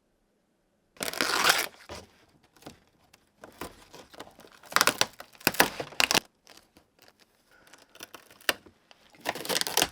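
Rotted wood being torn and broken up, in several bursts of rough tearing and cracking.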